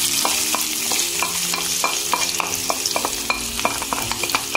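Sliced onions sizzling in hot oil in a stainless steel pan while a wooden spatula stirs them, knocking and scraping against the pan about four times a second over a steady hiss of frying.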